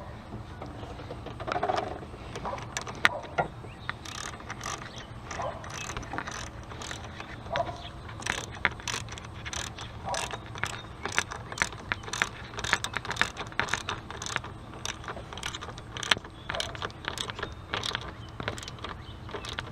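Hand wrench tightening the clamp bolt of a car battery's negative terminal: a long run of quick metallic clicks, coming faster in the second half.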